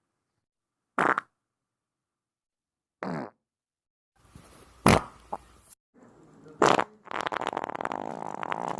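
A string of separate fart sounds: short blasts about a second in and about three seconds in, a sharp one near the middle, another a little later, then a long, rapidly fluttering fart over the last two seconds.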